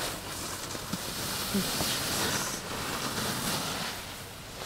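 Rushing hiss of sliding fast downhill over snow, with wind on the microphone, swelling louder about two seconds in.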